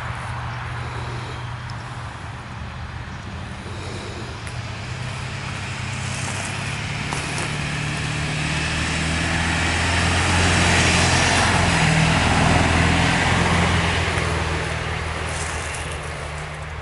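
A motor vehicle driving past on the road: engine and tyre noise swells, is loudest about two-thirds of the way through, then fades away.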